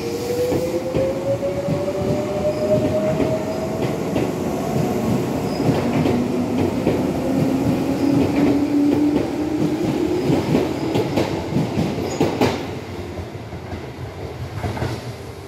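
Tobu 8000 series electric train accelerating out of a station. Its traction motor whine rises in pitch, drops back to a lower note and rises again, over a rumble of wheels. There are clacks over rail joints, and the sound fades as the train draws away near the end.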